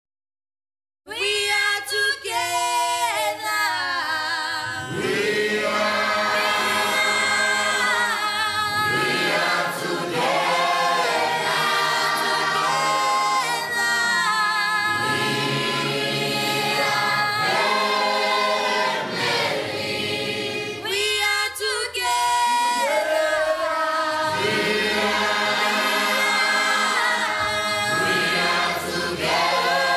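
A choir singing, starting about a second in after a moment of silence.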